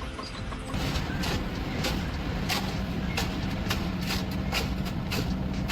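Machinery running with a steady hum that sets in about a second in, with irregular clicks and knocks over it.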